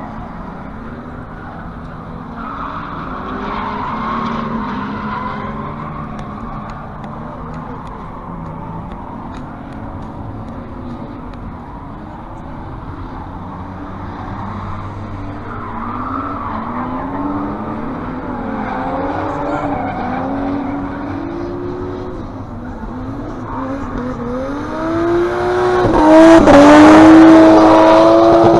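Car engines revving up and down, their pitch repeatedly rising and falling as cars are driven hard. Near the end one engine revs very loud and high, with tyre screech.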